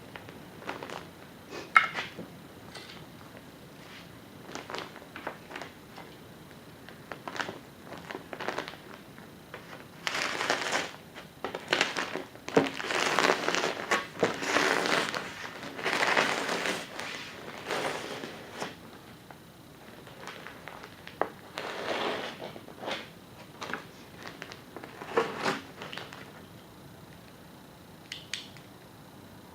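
Insulation being handled and cut: irregular crumpling and rustling, densest in a long stretch near the middle, with scattered knocks and one sharp click about two seconds in.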